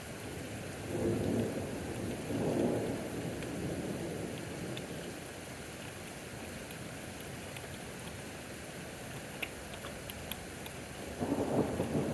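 Steady rain with thunder rumbling twice: one peal about a second in that rolls on for a couple of seconds, and another that starts near the end.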